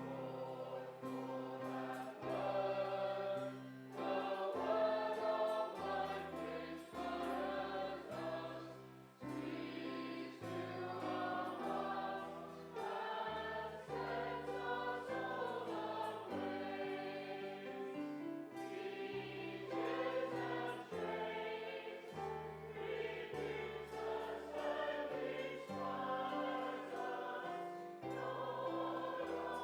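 Congregation singing a hymn together, accompanied by the music group with a moving bass line.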